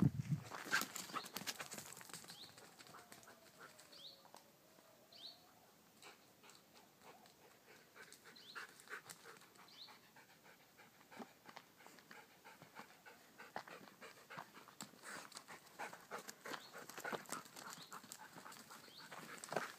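Dog panting, with irregular crunching steps on a stony dirt trail, busiest near the start and again near the end. A few faint short high chirps come in the middle.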